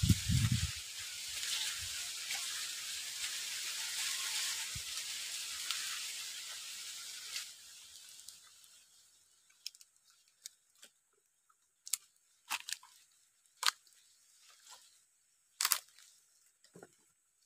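Dry palm fronds and leaf litter rustling, a steady hiss that fades out after about eight seconds. Then a scattering of short, sharp crackles and snaps of twigs and dry leaves at irregular gaps.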